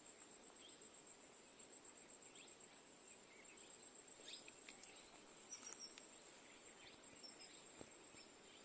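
Faint rural ambience: a steady high-pitched insect trill with a few scattered faint bird chirps.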